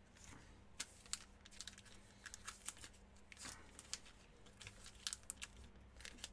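Faint handling of trading cards and their packaging: scattered light clicks, taps and crinkles, with a brief rustle about three and a half seconds in, over a low steady electrical hum.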